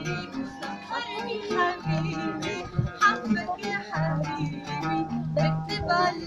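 An oud being plucked and strummed, accompanying a woman singing.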